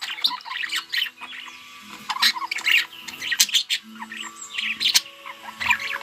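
Budgerigars chattering: a fast, irregular run of short squawks, chirps and clicks from several birds.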